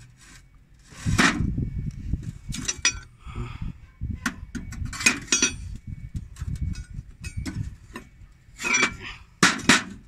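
Steel counter plates and friction discs from a JCB 3CX backhoe loader's wet disc brake clinking and clanking against each other and a metal surface as they are handled. The clinks come in scattered clusters, and some of them ring briefly.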